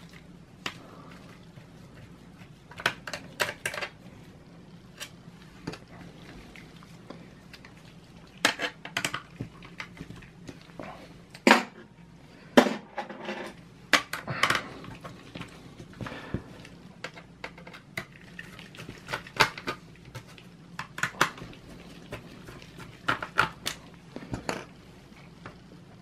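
Irregular small clicks and taps, single and in quick clusters, from a mini Phillips screwdriver working the screws out of a Dell Latitude E6520 laptop's plastic back cover.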